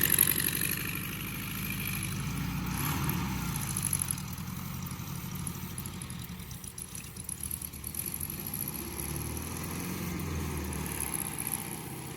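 A motor running steadily with a low, slightly wavering rumble.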